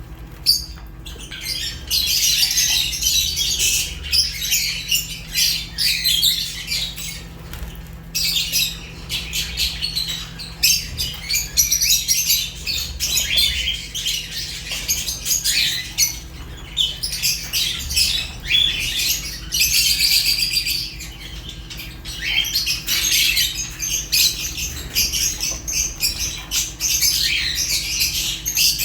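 A flock of African lovebirds chirping and squawking in rapid, high-pitched bouts that pause briefly every several seconds.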